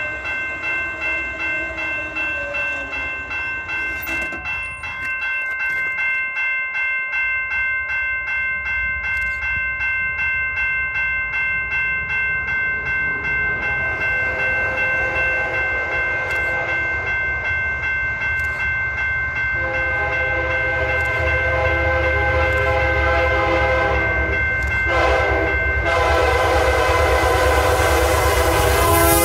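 Freight train approaching: the diesel locomotive's horn sounds faintly about 14 s in, then in long loud blasts from about 20 s with a short break near 25 s, over a steady bell-like ringing of about two strokes a second, typical of a railroad crossing bell. The low rumble of the train grows louder toward the end.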